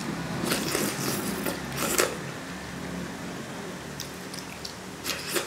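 Slurping spoonfuls of cold pea-starch jelly noodles: three short slurps, about half a second in, about two seconds in (the loudest) and near the end, over a steady low hum.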